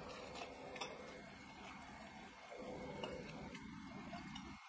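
Faint crackling and rustling of dry, day-old rotis being torn into small pieces by hand in a steel bowl, over a low steady hiss.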